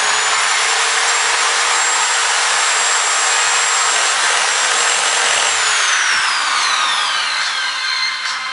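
Power drill bit grinding into the glass screen of an OUKITEL K4000 smartphone, the motor giving a steady high whine over the gritty grinding. From about five and a half seconds in, the whine falls in pitch and dies away as the drill winds down.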